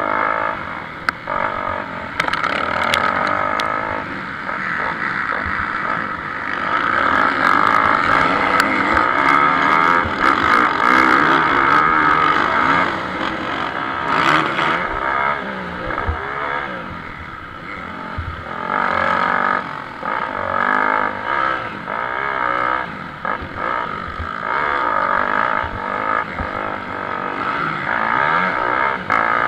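Motocross motorcycles racing on the track, their engines revving up and down as the riders accelerate and back off, loudest about a third of the way in.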